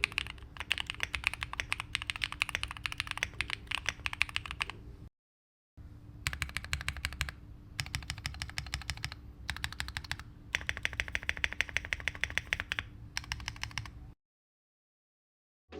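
Fast typing on a Neo70 aluminium mechanical keyboard with factory-lubed Neo white switches and Cherry-profile PBT keycaps: quick, even keystrokes in runs broken by brief pauses. The sound cuts out for a moment about five seconds in and the typing stops about fourteen seconds in.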